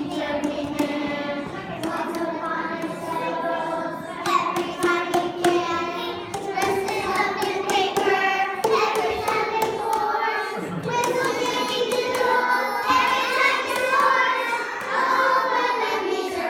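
A group of young children singing a song together, with hand claps among the singing.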